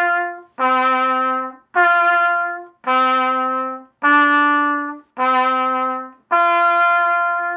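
Trumpet playing seven slow, separated notes of about a second each with short breaks between: G, D, G, D, E, D, G in written trumpet pitch, the opening two bars of a beginner's marching tune, tongued in a marching style. The higher G and the lower D alternate, and the E near the middle sits just above the D.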